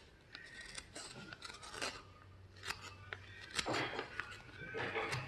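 Light metallic clicks and scrapes as a spoon knife is handled at a buffing machine. About two seconds in, a low steady motor hum begins, and near the end a rasping rub builds as the blade is worked against the buffing wheel.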